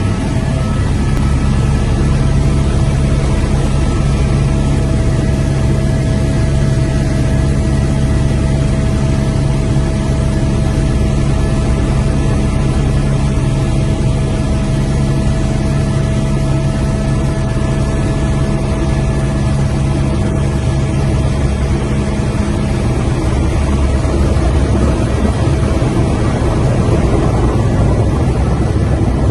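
Helicopter engine and rotor noise heard inside the cabin in flight: a loud, steady drone with a steady whine over it. About three-quarters of the way through, some of its steady tones fade away while the noise stays as loud.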